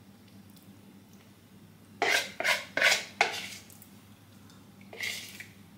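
A metal spoon scraping and clinking against a mixing bowl as leftover chocolate mixture is scooped out: a quick run of about four short strokes about two seconds in, and one more near the end.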